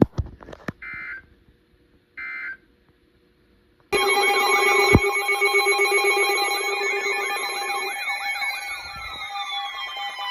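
Three short Emergency Alert System data bursts (SAME tones), then, about four seconds in, several emergency alert devices go off at once: a loud jumble of steady alert tones and wavering, siren-like wails, with a few falling tones near the end.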